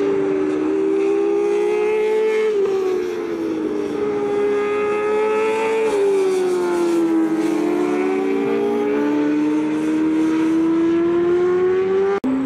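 Racing motorcycles at high revs through a corner, two or more engines overlapping: the pitch drops twice as they shift down, then climbs as they accelerate out. The sound cuts off abruptly near the end.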